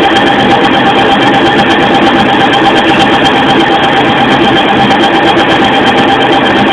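Nardini CNC lathe running steadily while turning a shaft: a constant machine drone with steady whining tones.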